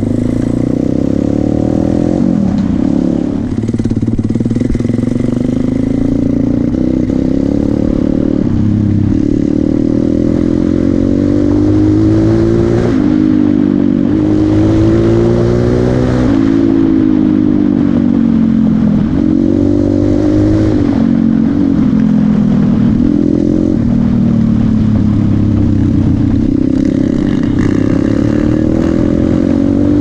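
A 190cc single-cylinder four-stroke pit bike engine runs under load while ridden. Its pitch repeatedly climbs as it accelerates and drops back at each gear change or roll-off of the throttle.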